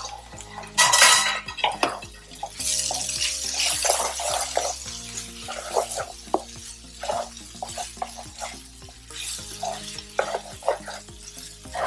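Spatula scraping and tapping in a frying pan, repeatedly, as cooked spiny gourd and onion are stirred and turned. A loud clatter about a second in.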